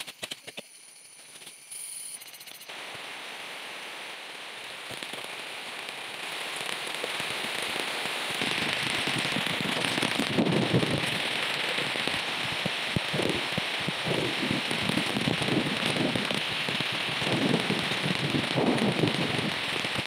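A few sharp machete chops, then rain in the forest that grows steadily louder into a heavy downpour, with many close drops hitting the leaves.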